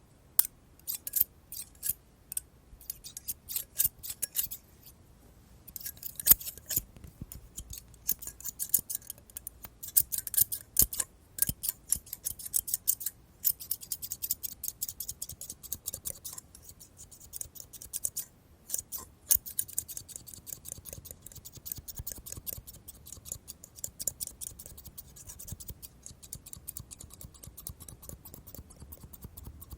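Scissors snipping over and over in quick, crisp runs of cuts, with short pauses about five seconds in and again past the middle.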